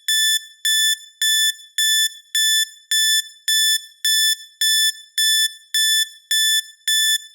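Countdown timer alarm beeping: a steady run of identical, high-pitched electronic beeps, a little under two a second, signalling that the countdown has run out.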